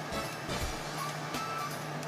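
Background music with sustained notes.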